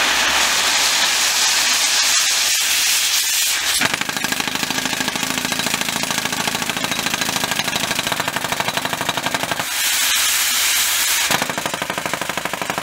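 Pneumatic down-the-hole hammer of a URB-2A2 truck-mounted drilling rig drilling into the ground, with compressed air hissing out of the hole. Rapid, steady hammering starts about four seconds in, gives way to plain hiss for a second or two, then starts again near the end.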